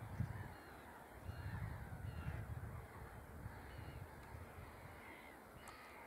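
Faint birds calling a few times over a low, unsteady rumble.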